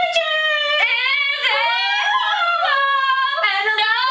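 Two girls singing in long, high held notes that slide up and down, with no clear words, close to a howl.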